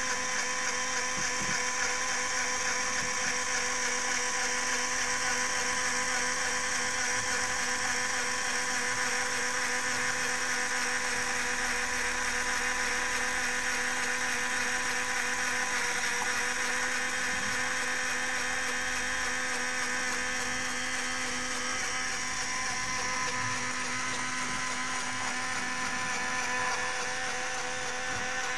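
Small LEGO electric motor running steadily, driving the plastic gears and chain of a LEGO Technic lift: a constant motor whine with a fine, fast chatter of plastic gear teeth.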